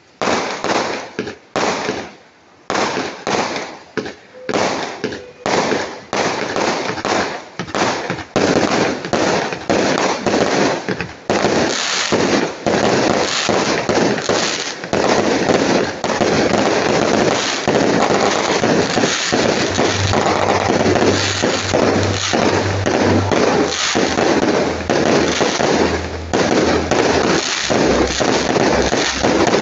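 Aerial fireworks going off: a quick series of sharp bangs, two or three a second, that thickens after about ten seconds into a dense, continuous barrage of bangs and crackle.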